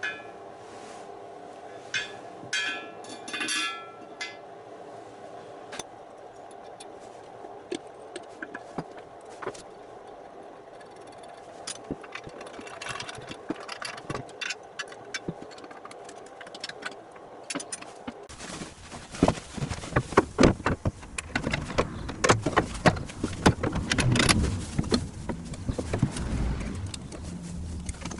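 Hand-tool and metal-part handling noises: scattered clicks and clatter over a steady hum. About eighteen seconds in the background changes and the knocking and clattering become louder and busier.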